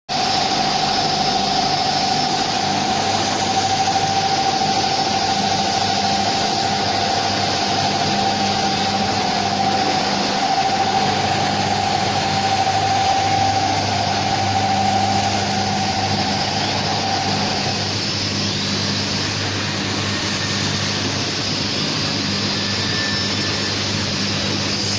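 Snack weighing and packing machine with a multi-head weigher running: a steady mechanical hum with a high whine that cuts off about three quarters of the way through.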